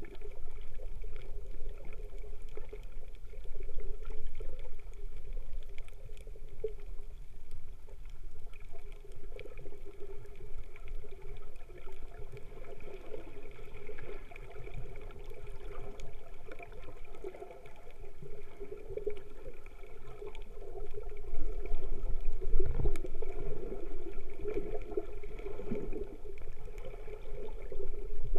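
Muffled water noise picked up by a camera held underwater, sloshing and gurgling steadily, with a deeper rumble swelling in the second half.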